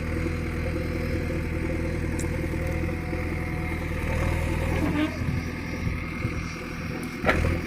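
JCB 3DX backhoe loader's diesel engine running steadily, easing off after about five seconds, with a sudden knock near the end.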